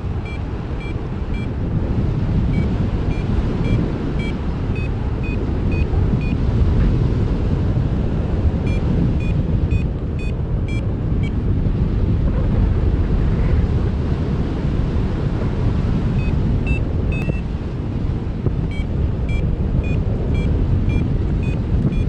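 Wind buffeting the microphone in flight under a paraglider, with a variometer beeping in runs of short high beeps, about three a second, its pitch shifting slightly; the beeping comes and goes several times, the vario's signal of rising air.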